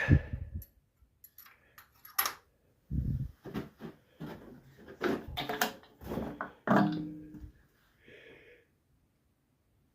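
Metal clicks, clunks and knocks of hands working on the stopped Lister diesel engine during pre-start checks: the dipstick going back in and the coolant filler cap coming off. About a dozen separate knocks come irregularly over the first seven seconds, a few of them heavy thuds.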